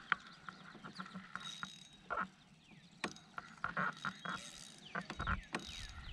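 Fishing reel clicking and ratcheting in uneven bursts as line is wound in and taken against a hooked carp.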